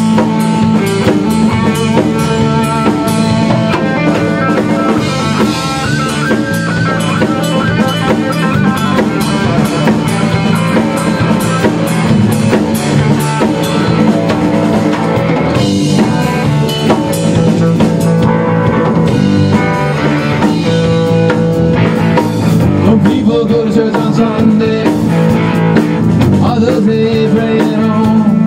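Rock band playing live: drum kit and electric guitar.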